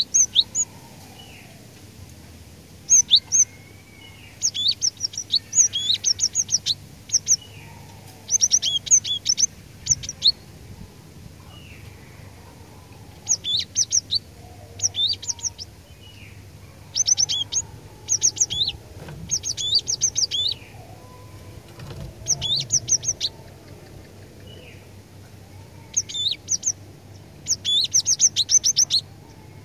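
Cinereous tit (glatik batu) singing: rapid clusters of high, sharply falling notes in bursts of about a second, repeated every few seconds.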